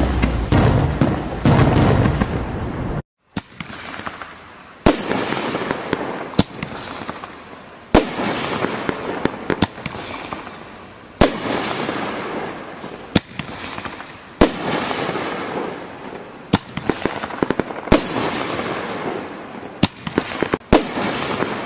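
Firecrackers and fireworks going off: about a dozen sharp bangs, roughly one every one and a half seconds, each followed by a fading crackling hiss. Before them, a song plays for the first few seconds and cuts off suddenly.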